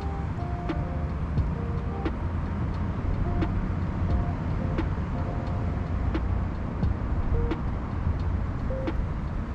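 Background music with a slow, steady beat and short melodic notes over a low rumble.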